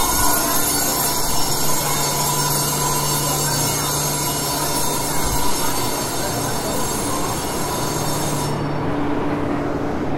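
Alishan Forest Railway train at the platform: steady mechanical rumble under a layer of high, shrill squealing tones. The high squeal cuts off suddenly about eight and a half seconds in, leaving the lower rumble.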